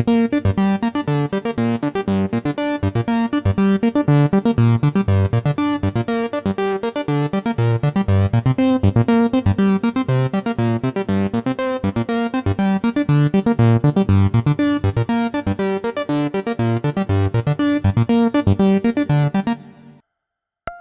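Roland PROMARS synthesizer plug-in playing a preset as a fast, continuous run of short keyboard-like notes in a repeating arpeggiated pattern, stopping abruptly about a second before the end.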